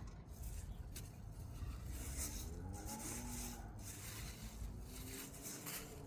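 Rustling and rubbing of packaging in bursts as an item is handled and unwrapped, with a sharp click about a second in. A faint wavering pitched sound runs under the rustle in the middle.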